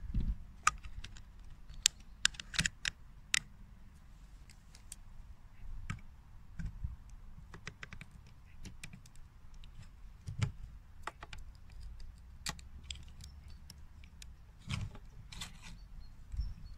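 Irregular light clicks and taps of hands handling a 3D-printed plastic gearbox and its steel output shaft, over a faint low rumble. The clicks come in clusters about two to three seconds in and again near the end.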